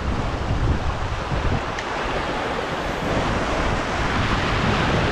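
Sea surf washing and breaking over a rocky shoreline in a continuous rushing wash that swells slightly about two seconds in. Wind buffets the microphone with a low rumble.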